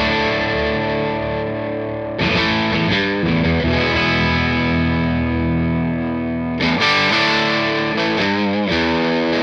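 Electric guitar played through the Safari Pedals Silver Llama vintage amp-sim plugin with its gain cranked: distorted chords ring out, with new chords struck about two seconds in and again near seven seconds.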